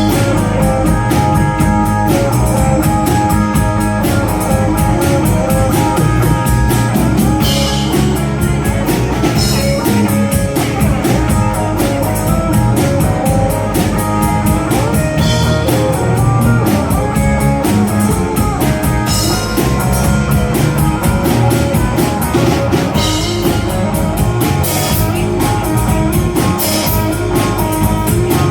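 Live rock band playing an instrumental stretch with no singing: guitar over bass and drum kit, keeping a steady beat.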